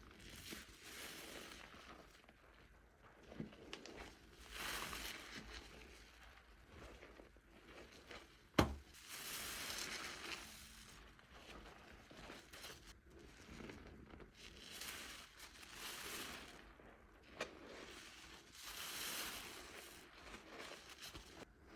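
Wet squishing and crackling of a soap-soaked sponge being squeezed, with foam pouring and popping, in swells every couple of seconds. One sharp click about nine seconds in.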